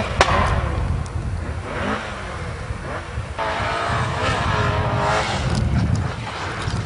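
Rally car engine revving hard as the car drives through, with continuous rumble and a sharp crack just after the start. The engine note holds high for about two seconds midway, then falls away.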